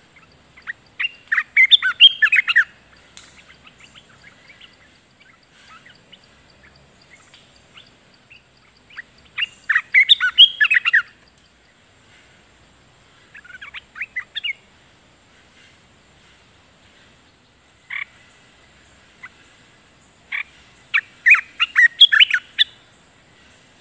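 Olive-winged bulbul singing in four short bursts of quick, bubbly notes, with a single note between the third and fourth.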